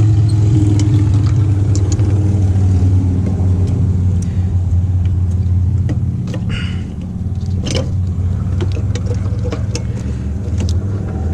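A motor-vehicle engine idling with a steady low rumble that eases slightly about two-thirds of the way through. Scattered sharp clicks and taps sound over it.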